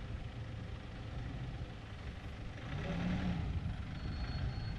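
Nissan Navara Pro4X pickup's engine running at low speed as the truck creeps forward to park, a steady low rumble that gets louder a little past halfway as the truck draws closer.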